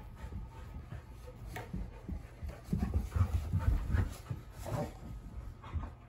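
Australian Shepherd panting and scrambling about in play, with a run of soft low thumps on the carpeted floor about three to four seconds in.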